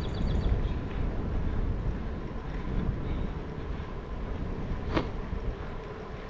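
Wind buffeting an action-camera microphone on a moving bicycle, with steady low rumble from the ride. A single sharp click comes about five seconds in.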